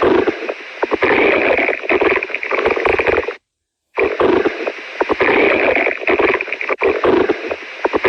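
Stomach growling recorded close up and played loud: a dense, crackly gurgling noise that cuts out for about half a second partway through, then carries on.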